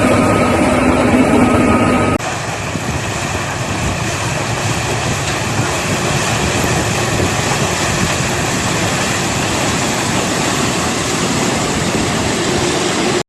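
Four-row corn harvester running in steady work: a dense, even machine noise from its engine and harvesting gear. About two seconds in it changes abruptly to a slightly quieter take of the same kind of running.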